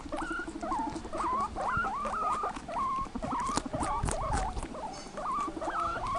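A crowd of rabbits scrambling and jostling, with patter and rustling of paws on grass. Over it runs a string of short squeaky calls that bend in pitch, a few a second.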